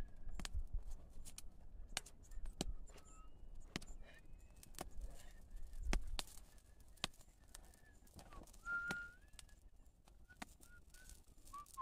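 Small twig campfire crackling with scattered sharp pops, along with short high chirps and a clear whistled note about nine seconds in.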